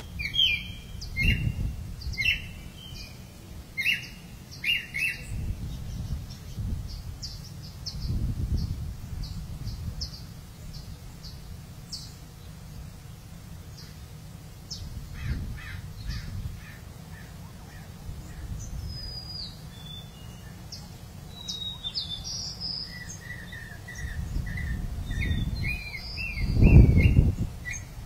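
Wild birds chirping and calling in short repeated notes, over a low rumble that swells now and then and is loudest near the end.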